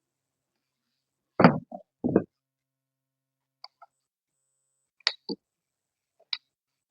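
Tools knocking and clicking against an old door panel's backer board as its staples are pried out: two louder knocks about one and a half and two seconds in, then several light, sharp clicks.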